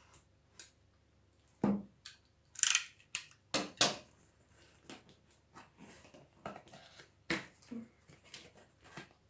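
Long cardboard kit boxes being handled on a table: a string of knocks, taps and short scrapes of cardboard, the loudest ones a few seconds in.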